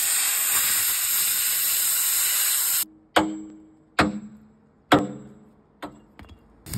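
A loud steady hiss that cuts off suddenly a little under halfway through. Then a hammer strikes the steel of an excavator bucket tooth three times, about a second apart, each blow ringing and dying away, followed by a few light taps.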